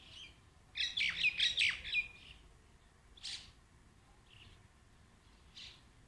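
Common mynas calling: a quick run of about six loud calls about a second in, then single calls near the middle and near the end.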